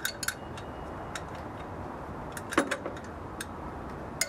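Irregular metallic clicks and taps of hand tools on an engine cooling fan: a screwdriver braced against the fan while a 10 mm tool frees off the fan's bolts. The loudest knock comes a little past halfway.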